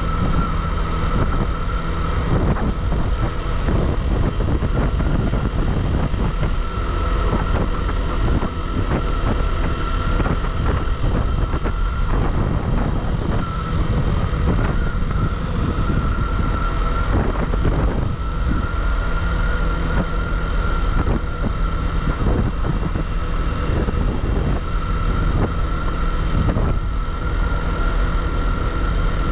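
Bajaj Pulsar single-cylinder motorcycle running at a steady cruising speed, its engine mixed with road and wind noise, with a steady high whine throughout.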